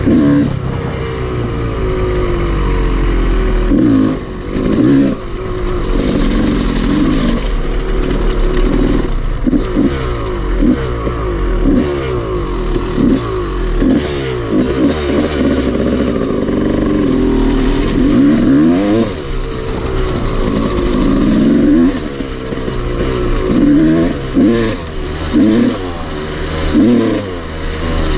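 Dirt bike engine revving up and down as it is ridden, its pitch rising and falling again and again, with wind rumbling on the microphone.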